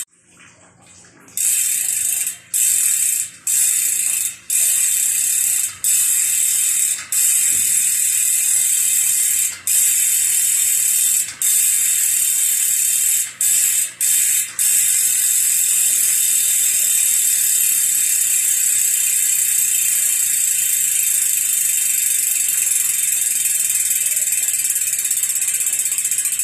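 Ragusa XM600 aluminium mountain-bike rear hub freewheeling: the freehub pawls click over the ratchet so fast that they merge into a loud, high buzz. Over the first fifteen seconds the buzz cuts out briefly about a dozen times, then it runs on steadily.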